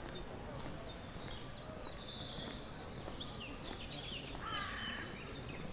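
Songbirds singing in the trees, a dense run of short, high chirps that slide quickly downward, over a low outdoor hum and faint distant voices.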